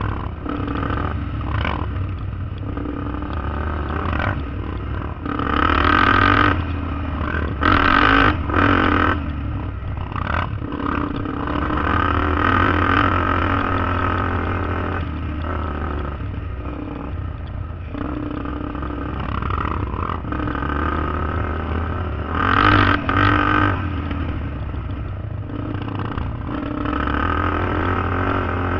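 ATV (quad) engine running under way, with slight rises and falls in pitch. Louder rushes of noise come about six to nine seconds in and again about twenty-three seconds in.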